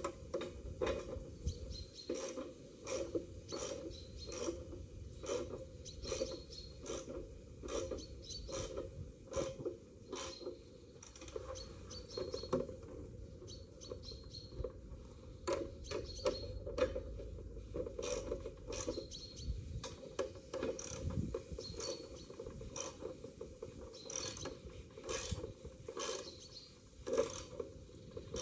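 Irregular clicks and light knocks, one to three a second, from hand work on a Holophane VM 2 streetlight luminaire: its parts and fittings being handled.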